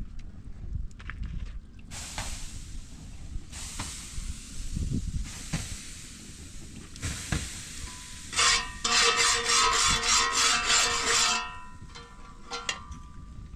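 Hissing and sizzling from a hot iron griddle over a wood fire, along with batter being stirred in a pot. Past the middle comes the loudest sound: about three seconds of fast rasping with a steady ringing tone.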